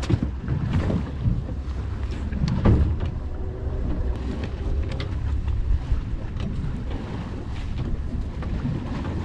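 Steady low rumble aboard a small fishing boat at sea, with wind on the microphone and scattered short knocks and clicks from fishing gear handled on deck.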